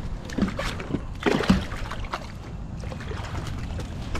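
A hooked bass thrashing and splashing at the water's surface, in a few sudden splashes with the biggest about a second and a half in.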